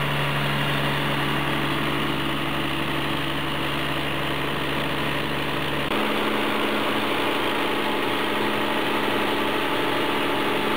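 Scania DC12 straight-six diesel engine running steadily at about 1430 rpm under a dynamometer load of about 530 Nm. About six seconds in the deep low rumble drops away while the engine noise carries on at the same loudness.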